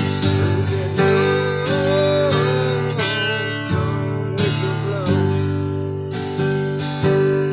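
Acoustic guitar strummed in a steady country rhythm, about one strum every two-thirds of a second, in an instrumental break of the song. A sliding, wavering melody line runs over the chords in the first half.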